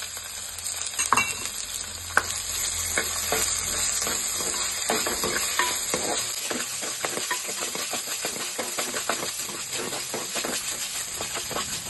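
Small onions (shallots) and crushed ginger-garlic-chilli paste sizzling in hot coconut oil in a clay pot, stirred with a wooden spatula that scrapes and clicks against the pot again and again.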